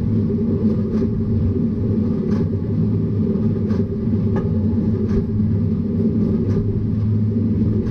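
Tractor engine running steadily under load with a Massey Ferguson 2200 series large square baler working behind it, a low drone with faint regular ticks about every 0.7 s.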